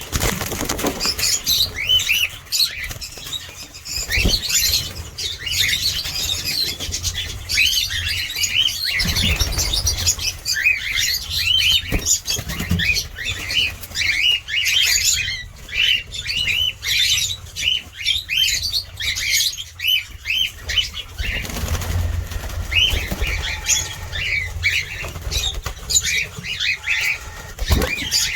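Many cockatiels calling at once: a constant chatter of short, overlapping chirps, with bursts of wing flapping.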